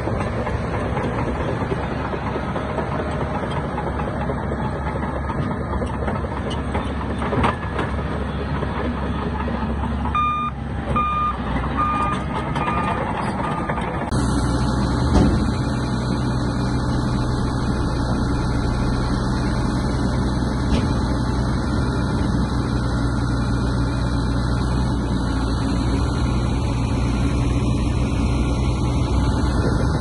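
Diesel engines of heavy earthmoving machines running steadily, with a reversing alarm beeping about six times, roughly one and a half beeps a second, starting about ten seconds in. About fourteen seconds in the engine sound changes abruptly to a different steady note, with a knock a second later.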